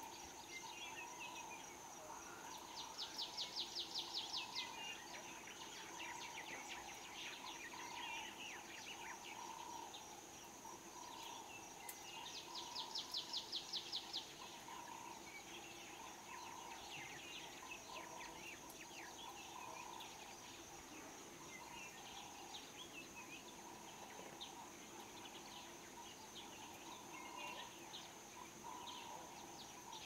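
Natural bush ambience: birds chirping and calling over a steady high insect buzz. Twice, a bird gives a rapid run of repeated notes, the loudest sounds.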